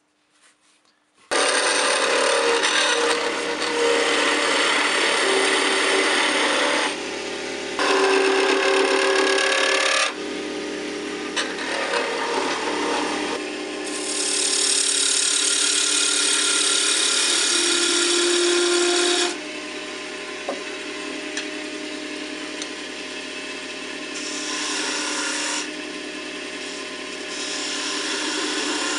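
Wood lathe spinning a slender plum-wood blank while a hand-held turning chisel cuts it: a steady hissing, scraping shaving noise. It starts abruptly about a second in and swells and eases in stretches of a few seconds as the tool bites and backs off.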